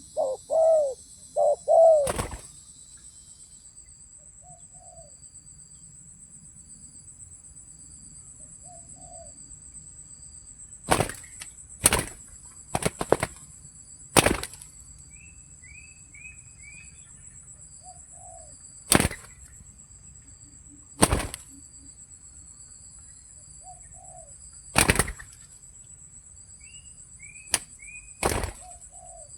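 Spotted dove cooing: three loud, falling coos at the start, then fainter coos every few seconds, over a steady high insect drone. In the second half, about nine sudden loud slaps ring out, with a few short high chirps between them.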